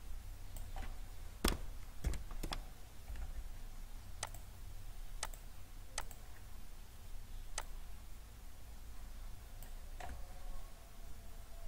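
Computer keyboard key presses and mouse clicks: about a dozen sharp, separate clicks at an uneven pace, over a low steady hum.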